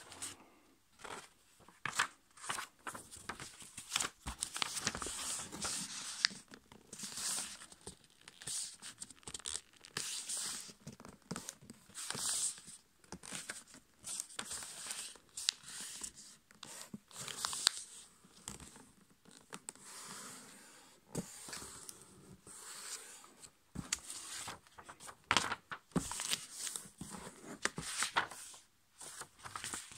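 A sheet of A5 copy paper being folded and creased by hand: irregular rustling and crinkling, with short sharp swipes as fingers press the folds flat.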